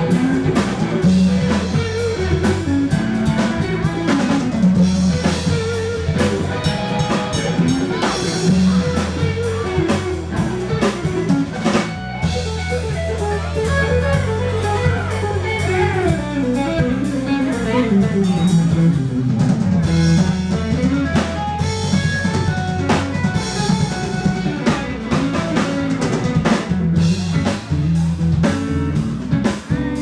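Live band playing: electric guitar, bass guitar and drum kit with a steady beat, and a melody line sliding up and down in pitch around the middle.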